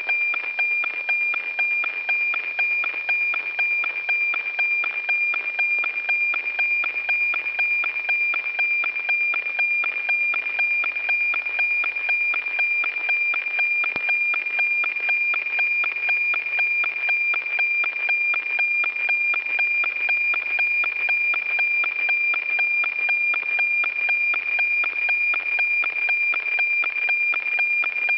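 NOAA-19 weather satellite APT signal as heard from the radio receiver: a steady high 2.4 kHz tone with a fast, even ticking rhythm, the line-by-line beat of the cloud image being transmitted.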